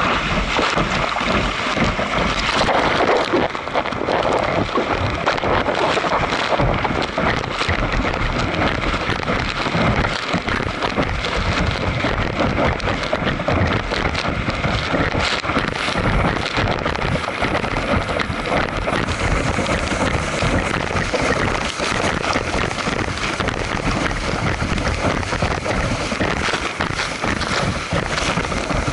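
Water rushing and splashing in a fast-moving craft's wake, with wind buffeting the microphone.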